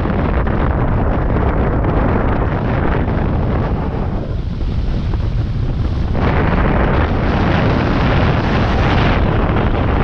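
Wind rushing over the microphone of a camera on a hang glider in flight: a loud, steady buffeting. Its hiss thins out for about two seconds midway, then comes back full.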